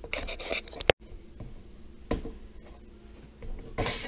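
A cut piece of drywall being handled and test-fitted into a backsplash opening: rustling and scraping, a sharp click about a second in, a single knock a second later, and a short scrape against the wall near the end.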